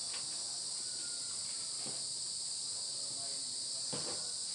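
A steady high hiss throughout, with faint rubbing and two soft knocks, about two and four seconds in, as writing is wiped off a whiteboard.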